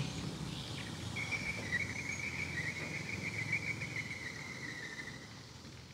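An insect's steady high trill over faint outdoor background noise, starting about a second in and fading out near the end.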